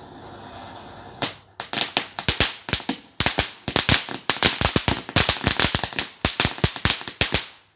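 A firework going off in a rapid string of sharp cracks, several a second, starting about a second in and stopping suddenly near the end.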